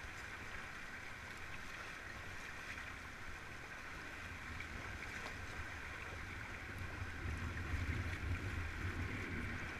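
Shallow river water rushing steadily over stones around an inflatable raft, with a low rumble that grows louder about seven seconds in.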